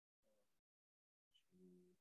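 Near silence, with a faint short hum near the end.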